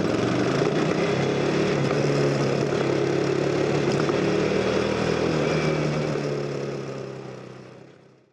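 CF Moto NK 250's single-cylinder engine running at a fairly steady speed, fading out near the end.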